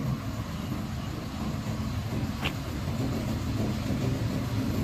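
Rear-loader garbage compactor truck's diesel engine running while it drives the hydraulics that move the packer plate. A steady low rumble that slowly grows louder, with one light click about halfway through.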